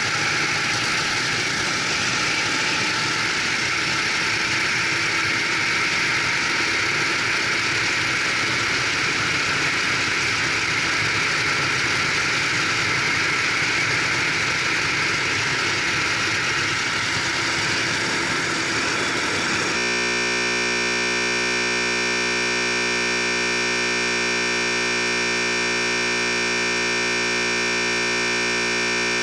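Racing kart engine running with heavy wind and road noise, the kart slowing down. About two-thirds through it cuts off abruptly into a steady, unchanging drone of several held tones.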